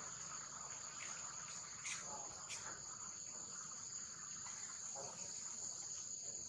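Steady high-pitched drone of insects, unbroken throughout, with a few faint short chirps or calls over it.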